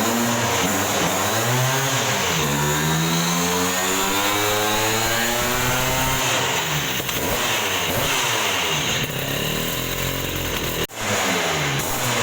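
Two-stroke Vespa race scooter engine revved up and down again and again, its pitch rising and falling with each blip, with a brief break about eleven seconds in.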